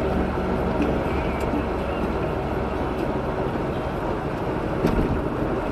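A car driving on a wet road, heard from inside: steady engine and road noise, with a single knock near the end.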